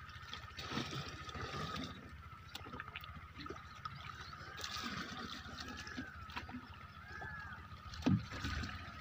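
Muddy water scooped with a plastic mug from a shallow ditch and poured into a plastic pot, splashing and trickling unevenly.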